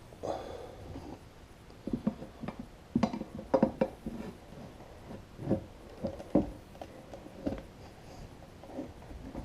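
Irregular knocks, scrapes and short squeaks of tools and rubber as a stubborn mower tire is worked over its wheel rim, busiest in the middle.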